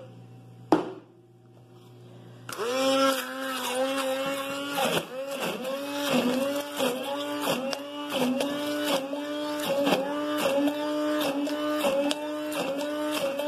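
Kitchen blender blending canned chipotle chiles with lime juice: a sharp click about a second in, then the motor starts a couple of seconds in and runs with a steady hum. After a few seconds its pitch dips briefly and recovers about every two-thirds of a second.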